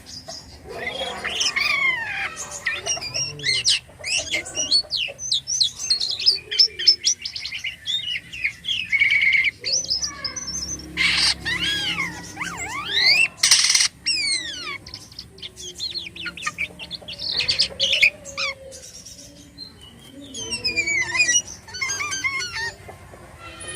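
A jalak kapas starling singing a long, varied song of quick whistled glides, chattering notes and harsh squawks, with two loud rasping calls about midway. It is in full song, mixing in imitated calls.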